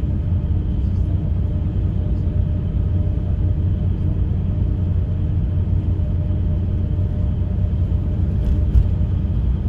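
Bus engine and road rumble heard from inside the moving bus, a steady low drone with a faint engine hum and a few light rattles.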